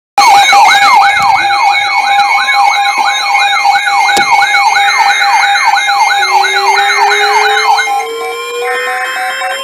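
Sirens starting abruptly and loud. One is an electronic yelp sweeping up and down about three times a second over steady tones, and stops about eight seconds in. A second, lower siren winds slowly up in pitch from about six seconds in.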